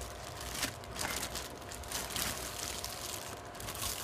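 Clear plastic wrapping crinkling and rustling in irregular bursts as a tripod is handled and pulled out of it.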